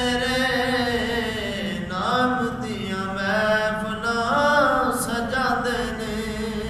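A man's unaccompanied voice singing a Punjabi naat (devotional verse in praise of the Prophet). Long held notes open the passage, then shorter phrases that rise and fall in pitch.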